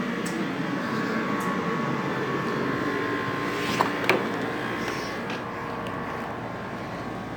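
Window air conditioner running, a steady hum of compressor and fan. Two sharp clicks come about four seconds in, and the hum eases slightly after that.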